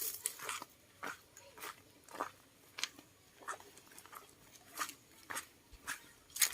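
Crunching footsteps on dry ground and plant litter, a little under two steps a second, fairly quiet.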